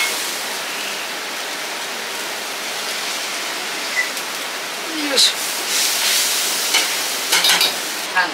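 Food sizzling steadily in hot oil, with a few sharp metal clinks of utensils, several of them close together near the end.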